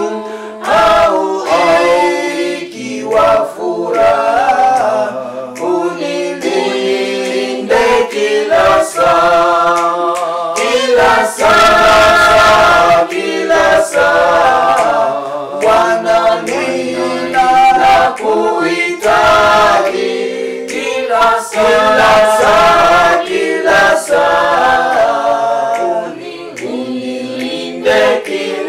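A choir singing a hymn a cappella, several voices in harmony.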